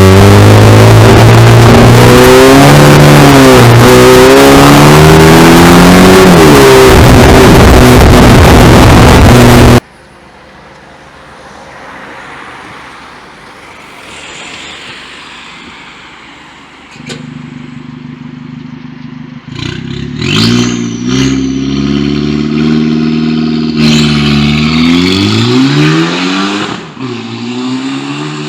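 Alfa Romeo Giulietta 1.4 TB turbocharged four-cylinder with a custom downpipe, revving through its exhaust. For about the first ten seconds it is so loud the recording distorts. After an abrupt cut it is much quieter, then it runs and revs up several times in rising sweeps in the second half.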